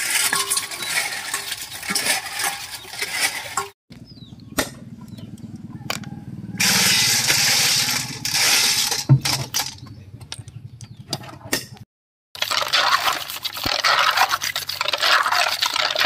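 Water running and splashing while horn snail (bagongon) shells clack together, rinsed and then scrubbed with a stiff brush in a basin. The sound comes in short stretches that break off suddenly about 4 and 12 seconds in, with scattered sharp clicks between them.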